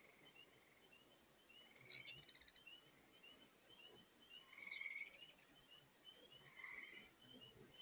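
Hummingbirds chattering at the feeders in sharp, rapid bursts of high notes, about two seconds in and again near five seconds, over a faint steady run of short high chirps several times a second.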